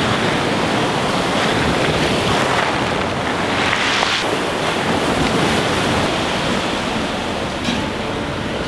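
Sea surf washing up and back over a shingle beach below a concrete sea wall, a steady loud rush of water, with wind buffeting the microphone.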